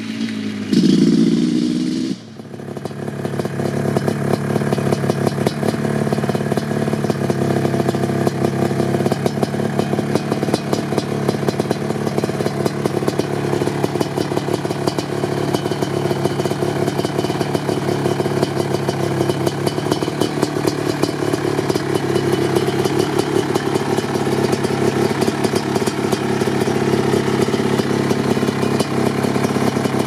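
Suzuki LT500R Quadzilla's 500cc two-stroke single, through an FMF Fatty pipe and Powercore silencer: a short burst of throttle in the first two seconds, then the engine idling steadily.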